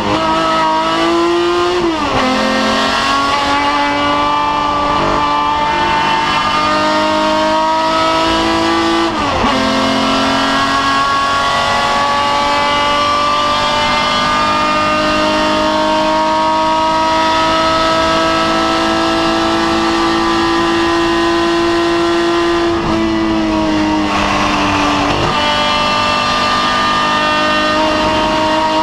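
BMW 3.0 CSL race car's straight-six engine under hard acceleration, heard from the cockpit. The revs climb and drop sharply at upshifts about two seconds and nine seconds in, followed by one long, slow climb. Later the revs fall over a couple of seconds as the throttle comes off, then climb again.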